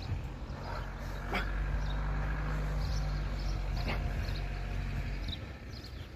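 A man straining through hanging knee raises on gymnastic rings, letting out grunts and whimpers of effort. Under them runs a steady low motor hum that stops near the end.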